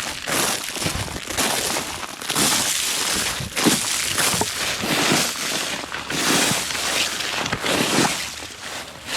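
Ice crust crunching and crackling in a steady run of crunches about once a second, like footsteps breaking through an ice-glazed surface after freezing rain.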